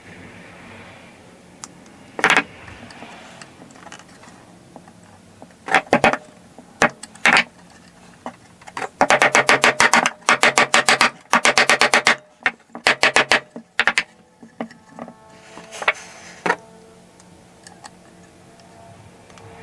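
Fret wire being tapped into the slots of a ukulele fretboard with a small hammer: a few single sharp taps, then a quick run of taps about halfway through, then a couple more single taps.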